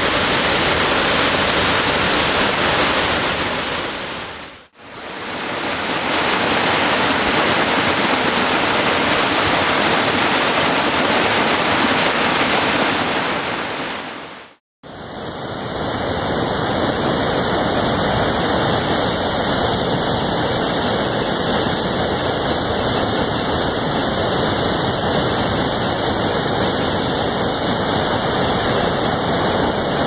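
Steady rush of a waterfall and of whitewater rapids in high water. The sound fades briefly to silence twice, about a third of the way in and again about halfway through, where one clip gives way to the next.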